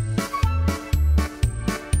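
Instrumental children's song music with keyboard notes over a steady low bass beat, about two beats a second, with no singing.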